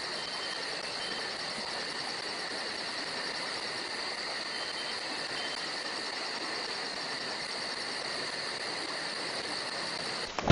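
Steady, even hiss with two constant high-pitched tones running through it, unchanging until it cuts off suddenly near the end.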